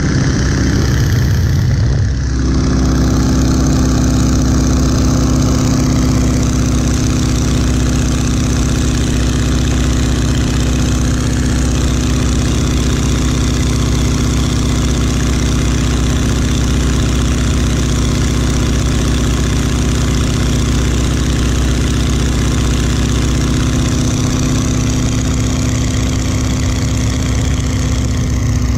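1941 Boeing Stearman biplane's radial engine and propeller running, heard from the open cockpit with the rush of the airflow. A brief change about two seconds in, then a steady, even drone.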